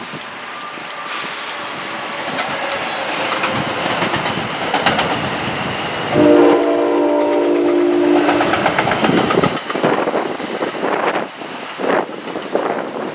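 An NJ Transit commuter train approaches, sounding one long blast of its multi-tone air horn about halfway through. The cars then pass with a run of rhythmic wheel clicks over the rail joints.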